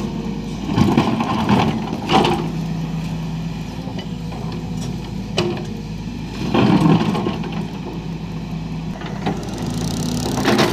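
Volvo crawler excavator's diesel engine running steadily while its bucket scrapes and shoves loose stones along the dirt, with louder grinding bursts about a second in, at two seconds and again around seven seconds.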